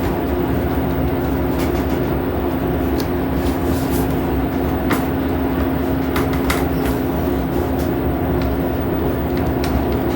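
Samsung washing machine running with a steady hum and low rumble, with scattered knocks and rattles as the machine shakes abnormally.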